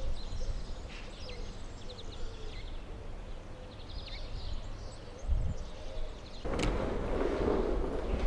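Small birds chirping in short bursts over a low outdoor rumble. About six and a half seconds in, a sharp click comes, and a louder, denser noise takes over.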